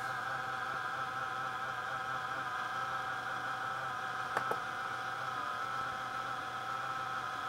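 Replacement cooling fan in an NEC VersaPro VY12F laptop running with a steady, slightly wavering whine over a hiss: an abnormal noise from a newly fitted fan, present from its first power-on. Two short clicks about halfway through.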